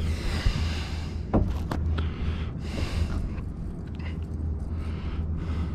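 Boat engine running steadily with a low hum, with a few sharp knocks about a second and a half in.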